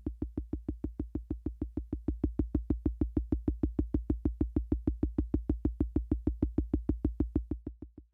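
Univox drum machine playing a fast, even pulse of short electronic drum hits, about six a second, each a deep thump with a short tone on top, fading out near the end.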